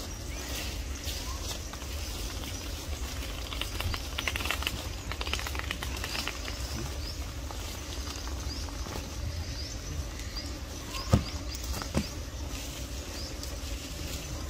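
Outdoor tree-canopy ambience: a low wind rumble on the microphone, rustling, and many faint short high chirps. Two sharp knocks about a second apart near the end are the loudest sounds.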